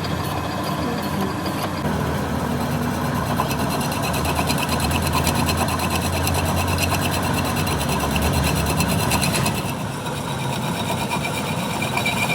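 A machine running with a fast, even clatter that stops about nine and a half seconds in, leaving a steadier running sound.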